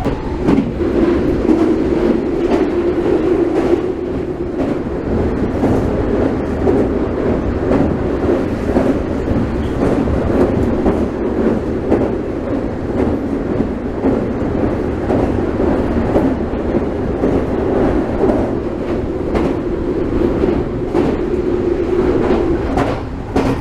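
Tozai Line rapid train running at speed, heard from inside the car: a steady rumble of wheels on rail with frequent short clicks from rail joints.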